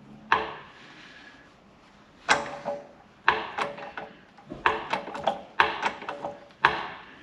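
Sharp metallic clanks and knocks, about a dozen in irregular clusters, each with a brief ring: metal parts and tools being handled around a shop press.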